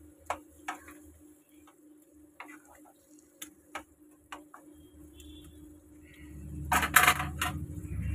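Spatula scraping and tapping against a non-stick pan while stirring taro greens and spices being fried down, giving scattered light clicks over a faint steady hum. About seven seconds in comes a louder burst of clatter over a low rumble.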